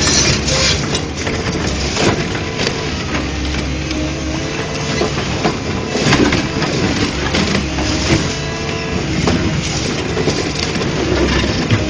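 Excavator demolishing: a diesel engine runs steadily under repeated crunching, cracking and clattering of broken debris.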